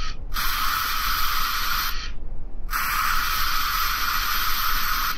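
Steady spray-like hiss of a VR sculpting program's tool sound as clay is laid on with the sculpting tool. It cuts out sharply twice, once just after it starts and once for under a second near the middle.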